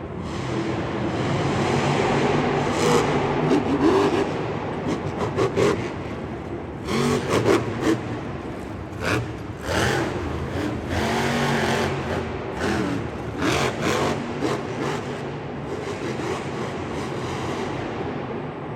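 A vehicle engine running and revving up and down, with repeated scrapes and sharp knocks.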